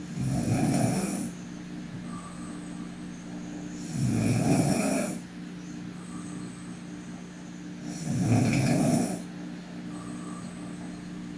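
A sleeping young woman snoring: three loud snores about four seconds apart, each about a second long, with fainter breaths between them. A steady low hum runs underneath.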